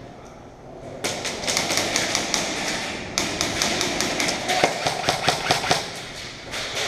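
Airsoft guns firing in two rapid bursts of sharp clicking shots, with a short break between them.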